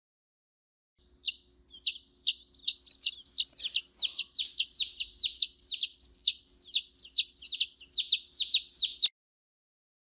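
A young bird chick peeping: a quick, even series of shrill peeps, about two and a half a second, each falling in pitch. It starts about a second in and cuts off abruptly near the end.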